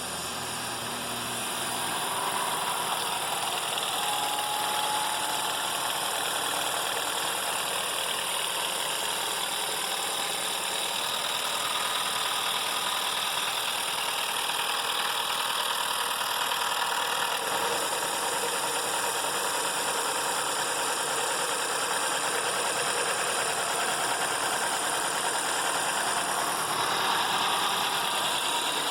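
Citroën C4 Lounge's 1.6 THP turbo petrol engine idling just after a cold start, with a rattle from its timing chain. The mechanic says the chain is slapping heavily and then finds the engine out of timing.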